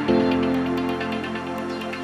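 Background music: electronic new-age track with sustained synth chords and a light ticking beat, a new chord entering just after the start.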